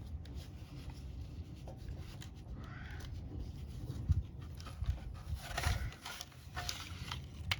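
Scraping, rustling and handling noises as a motorcycle headlight case is worked loose and lifted off the frame, with a light knock about four seconds in.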